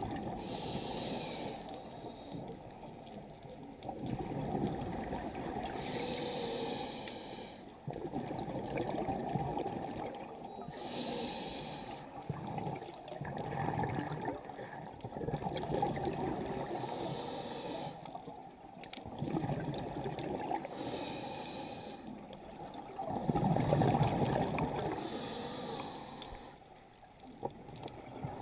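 Scuba diver breathing through a regulator underwater: a hiss with each inhale about every five seconds, alternating with the bubbling of each exhale.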